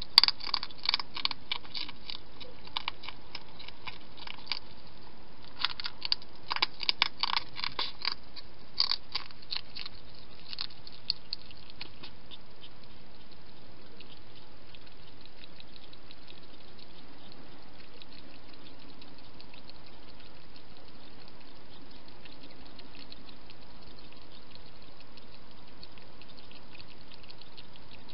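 Wild hedgehog feeding with its snout in a bowl, its mouth making runs of quick, sharp clicks. The clicks come thick and loud for the first eleven seconds or so, then thin out to faint ticks.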